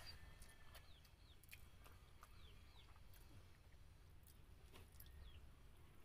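Faint eating sounds, scattered small mouth clicks while chewing, with a few short falling chirps from birds in the background over a low steady hum.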